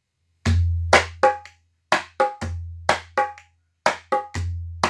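Dholak played in a slow basic beginner's pattern, the chhalla stroke lesson. A deep bass stroke rings on, followed by two or three quick, sharper strokes. The group repeats about every two seconds, three times.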